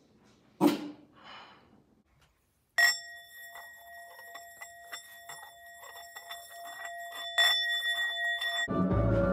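A hammered brass singing bowl is struck with a wooden mallet about three seconds in and rings with several clear steady overtones. It is struck again about seven and a half seconds in. Before that there is a short knock and rustle under a second in, and near the end music begins under the ringing.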